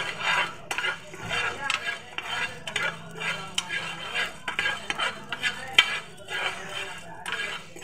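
Coriander seeds roasting in a nonstick pan on a low flame, stirred with a metal spoon: the spoon scrapes the pan and the seeds rattle, in repeated irregular strokes.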